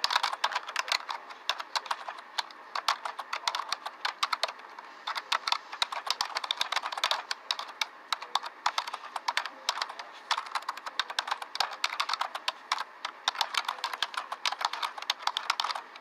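A rapid, irregular run of light clicks and taps, several a second, coming in spurts with short pauses between them.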